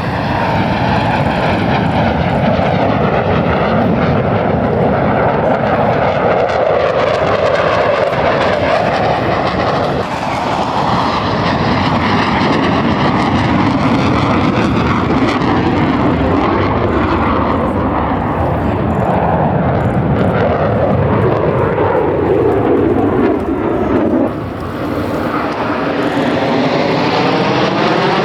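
Blue Angels F/A-18 Super Hornet jets flying past, a loud continuous jet roar. Its tone sweeps slowly down and up as the aircraft move, eases briefly near the end, then rises again as another jet closes in.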